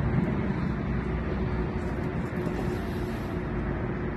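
Steady wind and water noise on an open boat, with a faint steady hum underneath.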